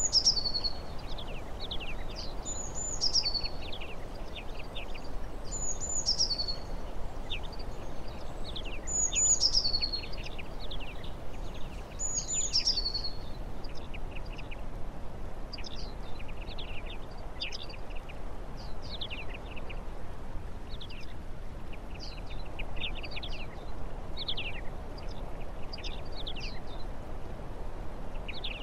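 Small songbirds singing: a high, thin phrase that falls in pitch repeats about every three seconds through the first half, among many short falling chirps that carry on throughout, over a steady low background noise.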